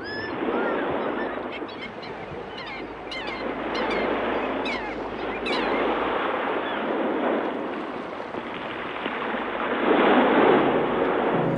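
Sea surf washing in swells that rise and fall, with cries of gulls heard over it in the first half.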